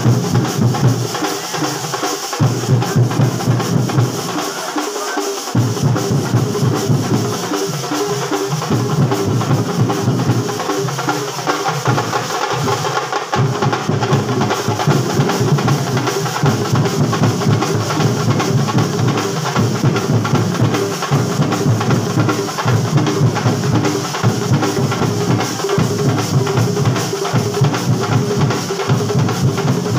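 A Kerala band set plays loudly, driven by fast, continuous bass drum and snare drum beats.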